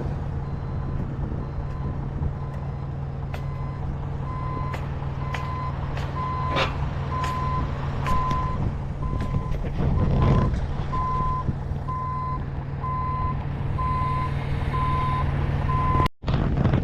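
Forklift backing up: its reversing alarm beeps about once a second over the steady running of its engine, with scattered sharp metallic clanks from the load. The sound drops out for an instant near the end.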